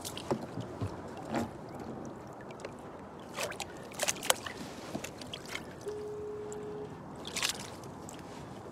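Water noise around a fishing kayak, with scattered sharp clicks and knocks from handling gear and a freshly caught crab. A short steady tone, about a second long, sounds about six seconds in.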